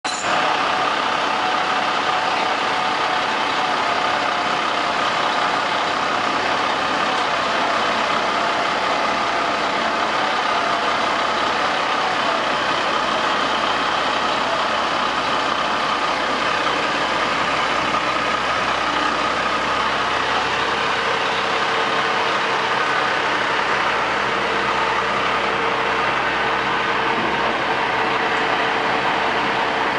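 A 1997 Ford L8000 vacuum/jetter truck running steadily on its Cummins L10 turbo diesel, a loud unbroken machine noise with several steady whining tones over it.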